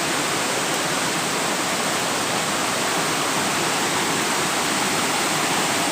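Waterfall on a rocky river: water rushing steadily over the rocks as an even, unbroken roar of noise.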